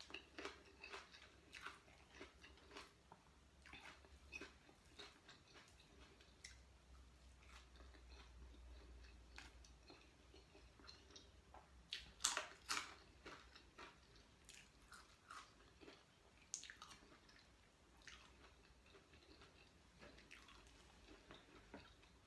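Quiet chewing of a mouthful of raw red bell pepper and sticky rice: soft wet mouth sounds and scattered crunches, the loudest crunches about twelve to thirteen seconds in.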